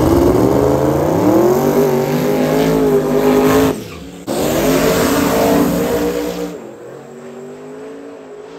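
Drag-race Camaro's twin-turbo Hemi V8 revving hard through a burnout, its pitch climbing over the first second or so and then held high with tire squeal. The sound breaks off suddenly about four seconds in, comes back, and near the end gives way to a much quieter, farther-off engine sound.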